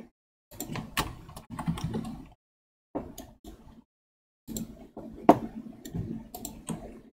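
Computer keyboard keys and mouse buttons clicking in short bursts while working in 3D modelling software, with abrupt silences between bursts. A single sharper clack about five seconds in is the loudest.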